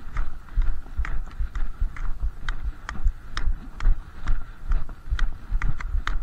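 Brisk walking on packed snow with Nordic walking poles: steady footfalls at about two steps a second, with sharp clicks from the poles' tips striking the icy path.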